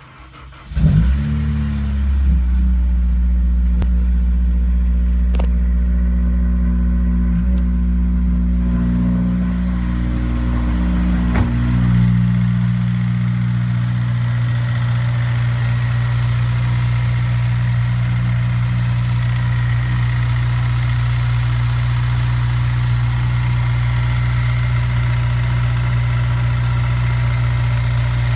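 Honda S2000's four-cylinder engine starting about a second in and then idling steadily, the idle settling to a lower, even note about twelve seconds in. The running is meant to let the piston slap in cylinder 4 be heard.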